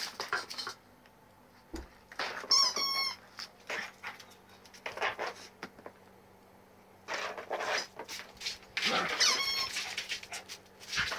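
Rubber-chicken squeaky toy squealing in short stepped squeaks as a puppy bites it, once about two seconds in and again around nine seconds. Between the squeaks there is scuffling and knocking of play on a carpet.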